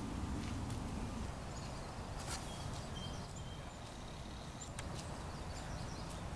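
Outdoor ambience: a steady low rumble with a few faint, short high bird chirps and a couple of soft clicks.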